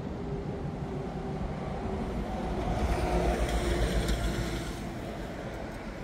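A road vehicle passes, swelling and fading around the middle, over a steady rumble of wind on the microphone and ocean surf.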